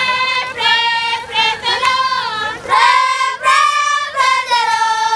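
Group of children singing together in high voices, holding and sliding between notes in short phrases.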